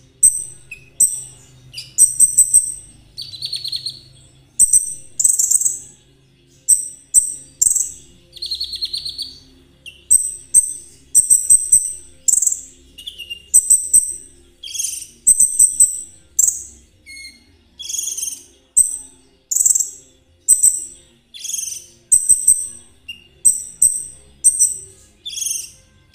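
A konin trotol songbird singing: a long run of short, sharp, high chirps about one to two a second, broken twice by brief buzzy rattling trills.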